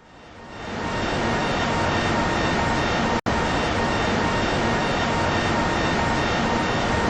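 Loud, steady roar of aircraft engines that fades in over about a second and is broken by a brief dropout about three seconds in.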